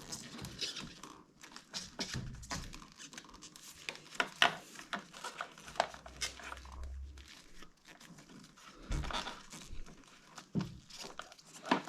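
Scattered light clicks, rustles and small knocks of hands working wires and plastic cable ties along a motorcycle's wiring loom.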